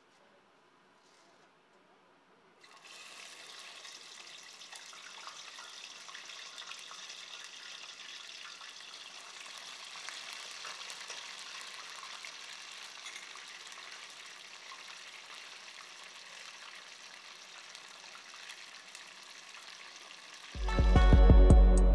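Hot oil sizzling and crackling steadily as food deep-fries in a pot, starting suddenly about two and a half seconds in. Loud electronic music with a heavy beat comes in about two seconds before the end.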